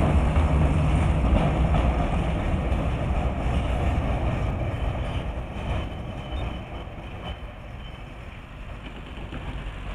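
Articulated electric tram passing close by on its tracks with a low rumble that fades steadily as it moves away.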